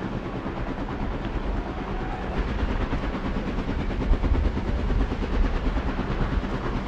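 Helicopter flying low, its rotor blades beating in a steady rapid chop, with a few louder swells about four to five seconds in.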